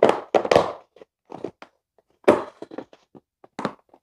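Lidded plastic container of raw chicken wings in dry breading mix being snapped shut and shaken, the wings knocking and sliding inside in irregular bursts.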